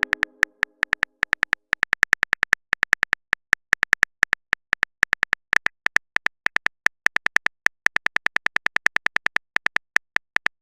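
Typing-sound effect of a phone keyboard: quick taps in uneven runs of several a second, with short pauses between runs.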